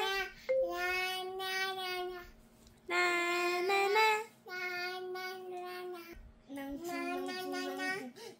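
A toddler girl happily crooning to herself in long, held notes, four phrases with short pauses between them.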